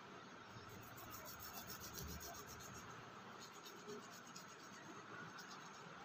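Faint rubbing and pressing of hands kneading a lump of wet clay into loose soil on a wooden board.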